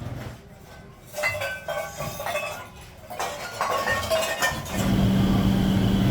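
Metal pieces clinking and ringing against each other in two quick clusters. About three-quarters of the way in, a machine starts a steady hum.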